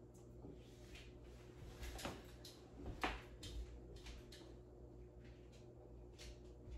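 Faint, scattered swishes and light scrapes of hands working window privacy film on a glass door pane, the sharpest about three seconds in, over a steady low hum.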